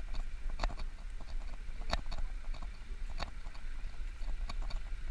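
Footsteps of someone walking on a path, with a sharp footfall about every second and a bit and lighter ones between, over a steady rumble of wind buffeting the microphone.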